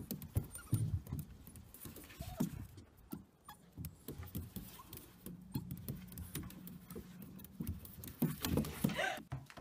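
Light taps and scrapes of a small puppy's claws on a plastic playground slide as it walks about on it, with a steady low hum for a couple of seconds in the middle.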